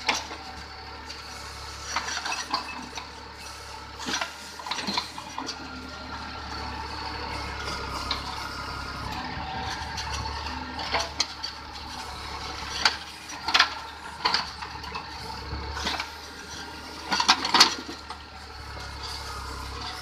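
Tractor-mounted backhoe digging: the Mahindra 605 Novo tractor's diesel engine runs steadily under the hydraulic load while the steel bucket and linkage clank and rattle and stones scrape. Several sharp metallic clanks stand out, the loudest in the second half.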